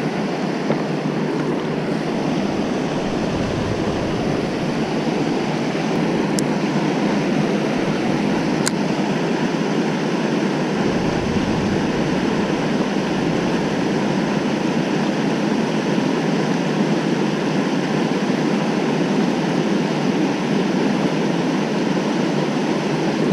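Steady rush of river water pouring over a low-head dam spillway and churning in the current below. Two faint ticks sound in the middle.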